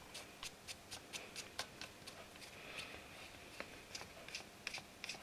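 Small cross-head screwdriver turning a small screw into a model locomotive's metal switch frame: a run of faint, irregular clicks and ticks, a few a second.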